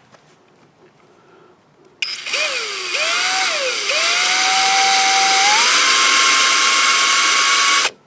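Electric drill with a small bit boring into woodworm-damaged timber. It starts about two seconds in, its motor whine rising and falling a few times, then runs steadily, steps up in pitch, and stops just before the end.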